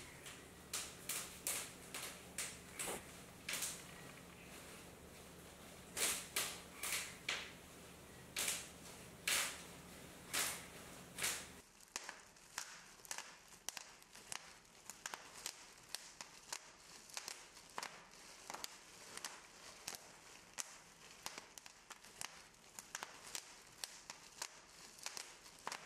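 A run of sharp, irregular clicks over a low steady hum. About twelve seconds in, the hum stops and the clicks go on quicker and quieter.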